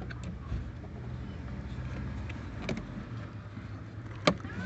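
Light clicks of a door-handle linkage rod being worked into the back of an inner door handle, ending in one sharp click about four seconds in as the rod seats. A steady low hum runs underneath.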